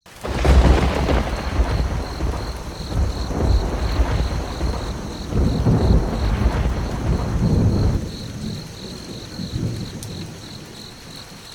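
Thunder rumbling over steady rain, with a high, cricket-like chirp pulsing about three times a second. The rumble starts suddenly and eases off about eight seconds in, leaving the rain and the chirping.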